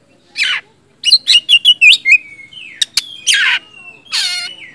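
Oriental magpie-robin singing loudly: a harsh rasping note, then a quick run of about six clear whistled notes and a sliding whistle, followed by two more harsh, buzzy notes near the end. A single sharp click sounds near the middle.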